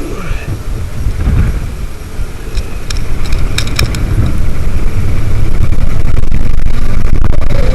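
Wind rushing and buffeting against the microphone on a fast-moving thrill ride, a loud low rumble that grows louder about three seconds in, with a few sharp clicks or rattles in the middle.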